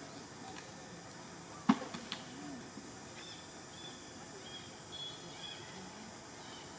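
Outdoor background hiss with one sharp click about a second and a half in, then two lighter clicks. Faint high bird chirps come a second or so later.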